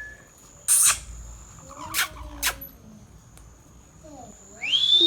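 Ringneck parakeet calling: a loud, noisy screech just under a second in, two short sharp calls around two seconds in, and a rising whistled call near the end.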